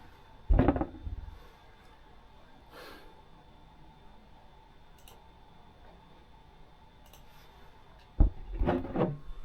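Two dull thumps in otherwise quiet room tone: one about half a second in, the other near the end, followed by a brief clatter.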